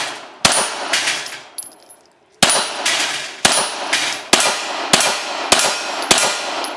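Pistol shots fired in a string at a match: one shot, a pause of about two seconds, then six more in quick succession, roughly one every 0.6 to 1 second. Several shots are followed by a short metallic ring.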